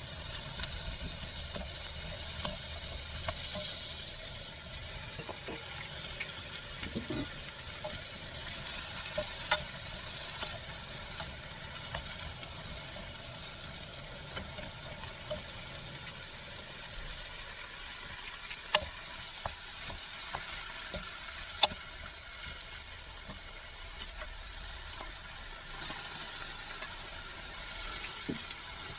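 Shiitake mushrooms and vegetables stir-frying in a frying pan: a steady sizzle, with sharp clicks of the utensil against the pan every few seconds.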